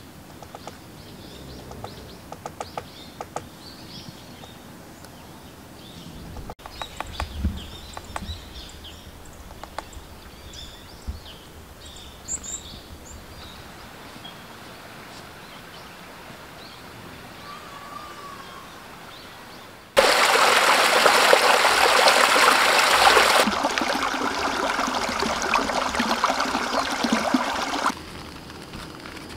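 Quiet outdoor morning ambience with small birds chirping now and then. About two-thirds of the way in, a loud steady rushing hiss starts abruptly, eases a little a few seconds later and stops shortly before the end.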